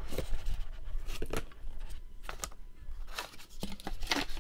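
Cardboard box lid being worked loose and lifted off by hand: a series of short scrapes and rustles of cardboard rubbing on cardboard, about one a second.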